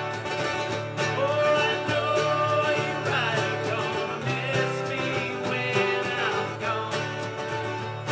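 Acoustic string band playing live: strummed acoustic guitars keep a steady rhythm under a lead melody that slides up and down in pitch.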